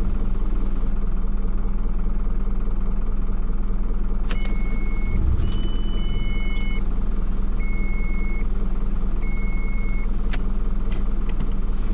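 Electronic beeping: four even beeps, each just under a second long and about a second and a half apart, plus one higher tone, starting about four seconds in over a steady low rumble. A few sharp clicks come near the beeps and near the end.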